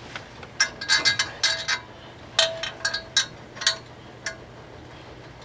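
Metal hand tool clinking against a bolt and fitting: about a dozen irregular sharp clicks over a few seconds, some with a brief metallic ring, as a wrench or socket is fitted onto the bolt.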